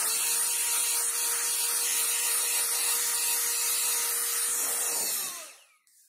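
Blow duster blowing a steady jet of air over a laptop's bottom cover: a loud hiss with a steady whine beneath it. A little after five seconds in it stops, the whine falling in pitch as the motor winds down.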